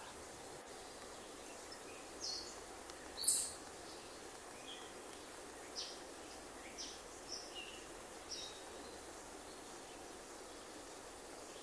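Small birds chirping in short, scattered high calls over a steady background rush; the loudest call comes about three seconds in.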